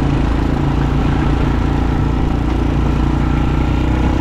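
ATV engine running steadily while riding, at an even pitch without revving.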